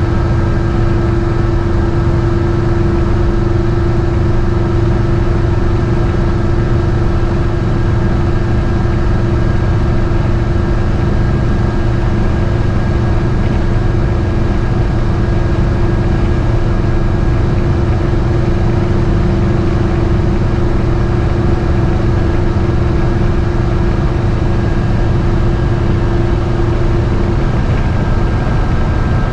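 GMC motorhome under way, heard from inside the cab: a steady engine and road drone, with a steady hum that stops near the end.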